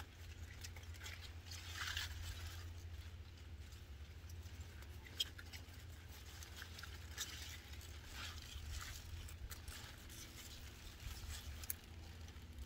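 Mustard green leaves and stems rustling and crackling as whole plants are pulled up and gathered by hand, with scattered sharp clicks.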